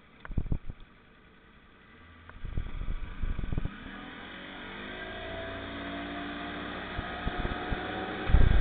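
Motorboat engine pulling away under throttle, its pitch rising steadily from about halfway through over the rush of water, as it tows two inflatable tubes. Low thumps come in the first few seconds, and a loud thump comes near the end.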